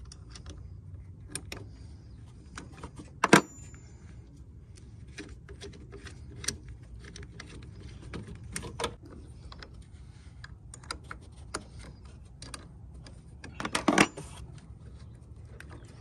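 Small metal clicks and clinks of a wrench working a car battery's terminal bolts as the battery is disconnected, with two louder metallic knocks, one about three seconds in that rings briefly and another near the end.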